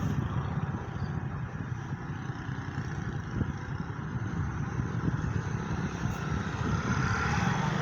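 Motor vehicle driving: steady engine and road rumble.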